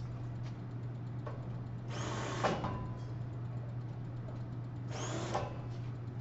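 Drill press running steadily, with two short bursts of cutting noise about two and five seconds in as a centering drill bores starting holes into a steel I-beam.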